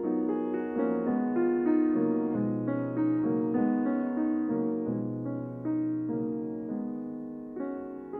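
Background piano music: a gentle melody of held notes and chords changing about every half second.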